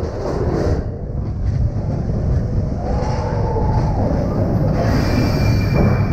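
Expedition Everest roller coaster train running along its track, a loud rough rumble of wheels on rail. A brief wavering tone rises and falls about halfway through.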